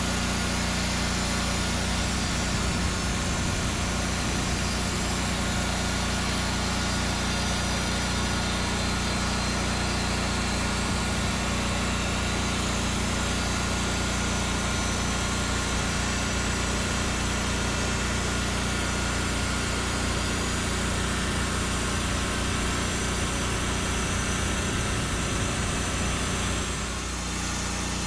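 Engine of a Norwood Lumbermate Mark IV band sawmill running steadily, easing off slightly near the end.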